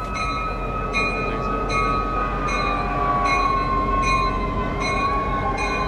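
EMD diesel freight locomotives approaching slowly on curved track, with a low engine rumble, a high wheel squeal that slides slowly down in pitch, and a bell ringing steadily a little more than once a second.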